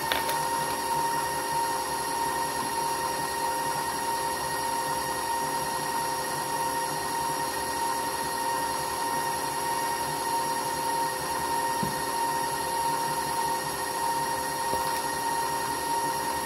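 Electric stand mixer running steadily while it mixes cookie dough, its motor giving a constant whine.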